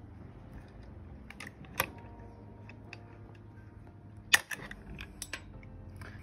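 Hand rivet gun setting a pop rivet: a few sharp clicks as the handles are squeezed, then a louder snap a little over four seconds in as the rivet's mandrel breaks off.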